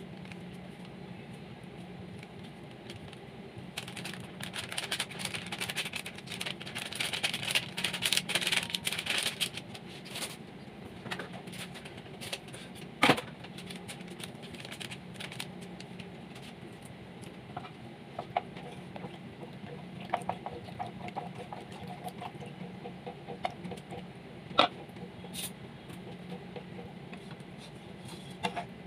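Plastic-foil sachet of béchamel powder mix crinkling and rustling as it is opened and the powder is shaken out into a pan of cold milk, a dense crackle lasting about six seconds. Then quieter stirring of the milk and powder by hand to break up lumps, with a couple of sharp clicks, over a steady low hum.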